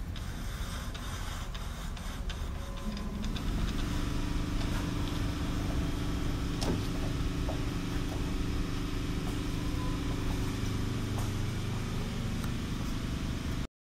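Clausing 5914 metal lathe running with a steady mechanical hum, which grows louder and takes on a higher tone about three seconds in. Light clicks and knocks from its handwheels and slides being cranked come in the first seconds, with one sharper knock near the middle.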